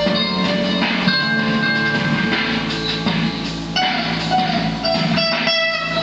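Electric guitar, a Tokai TST 56 HSS, played through a Fender G-DEC amp on a spacey delay setting: picked notes ring on and repeat, overlapping one another, over a backing track.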